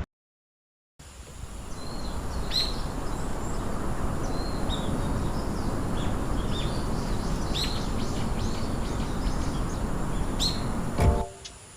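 Birds chirping in short, scattered calls over a steady rushing background of flowing river water. The sound starts about a second in and cuts off just before the end.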